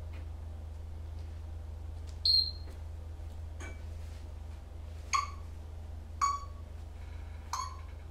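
African grey parrot giving four short, sharp squeaks, each dropping quickly in pitch, the first higher than the others, over a steady low hum.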